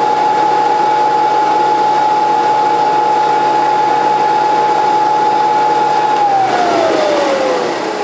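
Porter-Cable disc sander's motor running with a steady whine, then switched off about six seconds in, its pitch falling steadily as the disc spins down.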